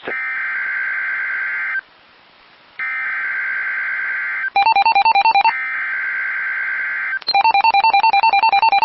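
Emergency Alert System SAME header on NOAA Weather Radio: three harsh digital data bursts with short pauses between them, the code that opens a severe thunderstorm warning. From about halfway through, a fast beeping that flips between two pitches, about ten beeps a second, plays between and after the bursts.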